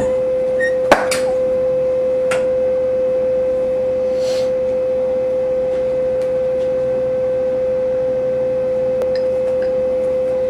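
A steady, unbroken mid-pitched tone, like a single held hum. A sharp click comes about a second in, and a few faint ticks and a brief hiss follow.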